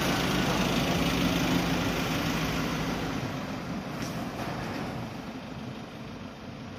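Engine idling with a steady low hum, fading gradually over a few seconds.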